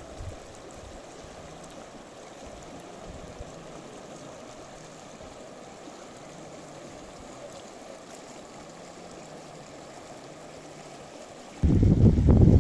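Steady rushing of running water. About a second before the end a much louder, low rushing noise starts suddenly.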